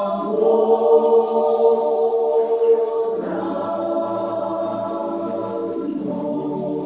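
Fijian villagers singing together as a choir in several-part harmony, holding long notes and moving to a new chord about three seconds in.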